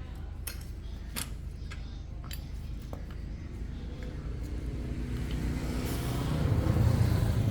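Motorcycle engine running steadily, growing louder over the last few seconds, with a few sharp clicks in the first couple of seconds.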